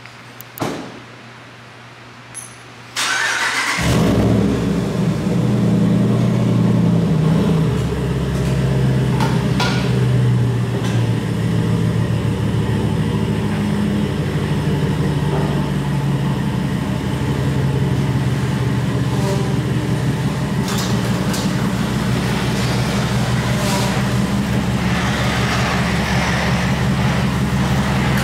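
Ram 1500 pickup's engine starting about three seconds in, after a short click, then idling steadily.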